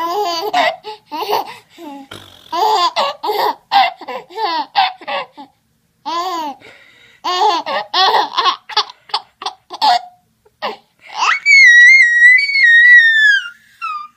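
Baby laughing in short repeated bursts, then letting out a long high-pitched squeal about eleven seconds in that wavers and falls away at the end.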